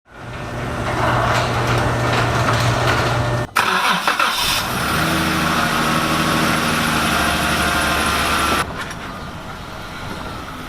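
Jeep Wrangler JK engine running, in short edited segments: a steady hum, then from about three and a half seconds in a lower engine note, which drops to a quieter sound near the end.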